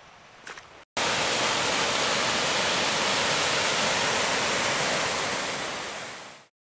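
Snowmelt stream cascading down over boulders: a steady, loud rush of falling water that starts suddenly about a second in and fades out near the end.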